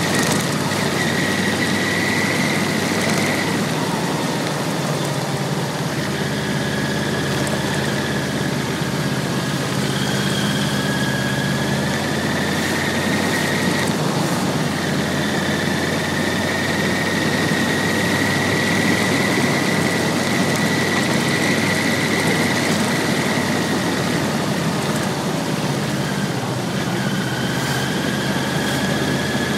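Yamaha VMAX1200's V4 engine running steadily while riding at modest speed, heard from an onboard camera with steady wind noise over the microphone. A thin high whine drifts slowly up and down in pitch.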